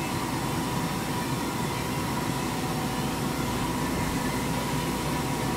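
Machine-shop machinery running steadily: an even hum with a constant whine held at one pitch throughout.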